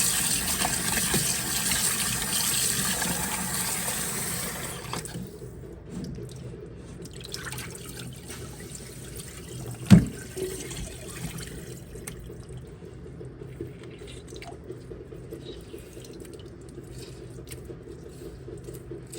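Kitchen tap running into a sink while chicken thighs are washed under it. The tap is shut off about five seconds in. After that come drips and small handling sounds, with one sharp knock about ten seconds in.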